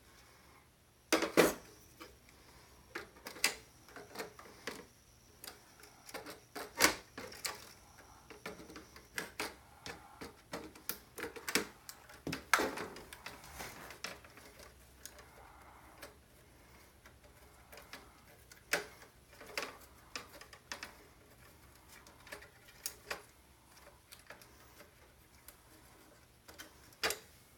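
Irregular clicks, taps and clinks of small metal and plastic computer parts being handled and set down while the machine is taken apart for scrap, with the sharpest knocks about a second in and around seven and twelve seconds in.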